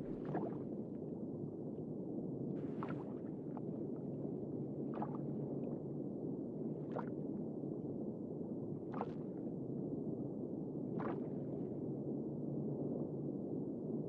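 Underwater ambience: a steady low rush of water, with a short watery surge about every two seconds.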